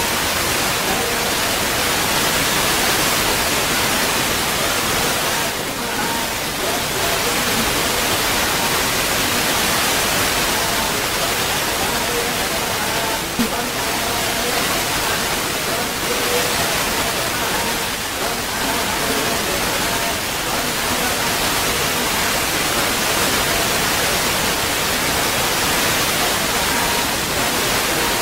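Steady loud hiss, with faint voices of a crowd of devotees murmuring beneath it.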